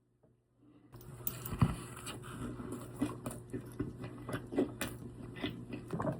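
A person chewing a mouthful of fried chicken sandwich with ranch: irregular soft crunches and wet mouth clicks, starting about a second in, over a low steady hum.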